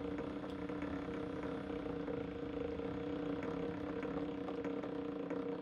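Homemade rose engine (guilloche machine) running under its drive of a gear and a single belt: a steady hum with two held tones and faint rapid ticking.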